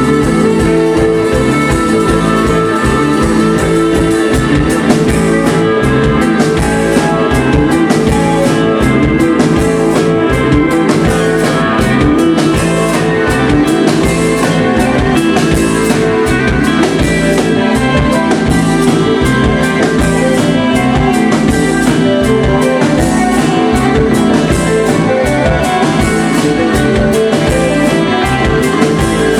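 Rock band playing live, electric guitars over a drum kit, loud and continuous.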